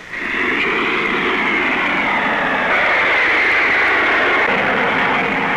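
Model speedboat's power plant running steadily as it is readied for a run. It sets in abruptly: a loud rushing noise with a high, slightly wavering whine on top.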